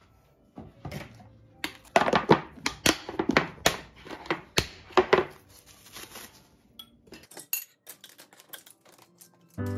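Kitchen utensils being cleared off a counter: chopsticks, a spatula and a bowl clattering and clinking in a quick, irregular run of knocks, busiest in the middle and thinning out near the end.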